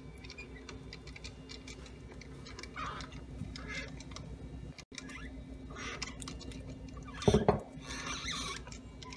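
Quiet handling noises: small scrapes, rustles and taps of a wooden block and stacked metal weights being shifted on a kitchen scale's platform, with one louder knock about seven seconds in as they are lifted off.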